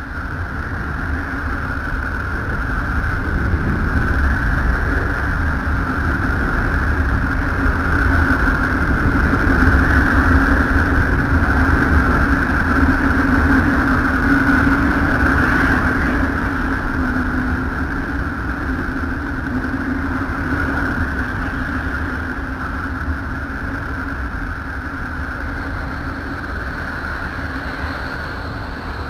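NASA's 'sound of Uranus' space recording, made from spacecraft wave data turned into audio: a continuous rumbling drone with two steady humming bands, one low and one higher, swelling louder several seconds in and easing a little toward the end.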